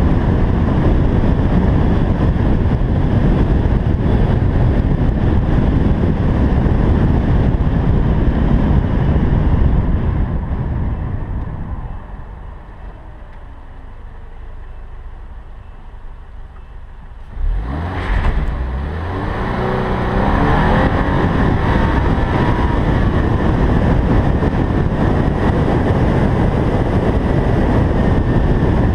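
Subaru BRZ tS flat-four engine and road noise while driving. The noise fades down about ten seconds in. Then, about 17 seconds in, the engine revs up hard with rising pitch and the car accelerates into a rear-end slide with traction and stability control off, after which it runs on steadily and loudly.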